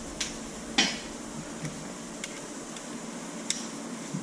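Hand tools being handled: a socket and wrench clinking, a few scattered light metallic clicks, the loudest about a second in.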